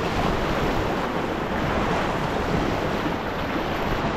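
Steady rush of a river rapid's whitewater churning and splashing around an inflatable packraft, heard from on the boat.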